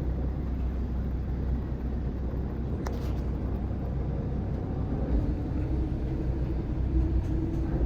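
Car driving, heard from inside the cabin: a steady low rumble of engine and tyres, with a single click about three seconds in.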